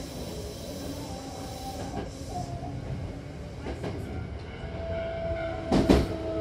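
Hankyu commuter train heard from inside the car as it slows into a station: a steady running rumble, with a steady whine setting in about two-thirds through. There is a loud sharp knock near the end.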